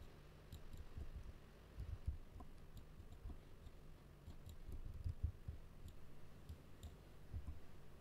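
Faint, irregular clicks of a computer mouse and keyboard, with soft low thuds among them.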